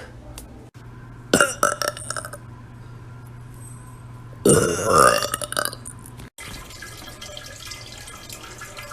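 A woman's loud, drawn-out burp about four and a half seconds in, lasting about a second. Before it, about a second and a half in, comes a quick run of short pops and clicks.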